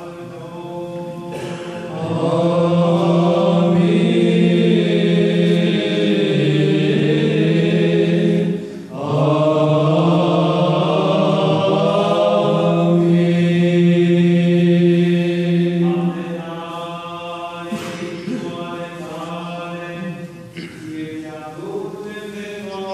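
Byzantine chant of the Easter liturgy's responses, sung by a men's monastic choir. A loud, steady low ison drone is held beneath the moving melody. The singing swells about two seconds in, breaks off briefly near the middle, and grows softer in the last third.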